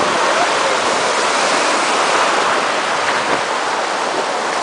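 Steady rush of sea water and wind noise on the microphone as a banana boat is towed across the sea.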